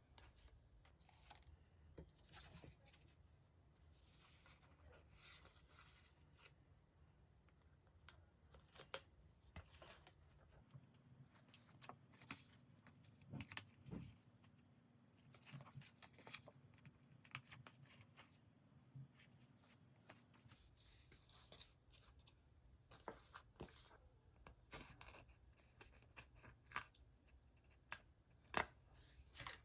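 Faint paper and sticker handling while decorating a diary: sticker sheets and paper peeled, torn and rustled, with scattered small clicks and taps.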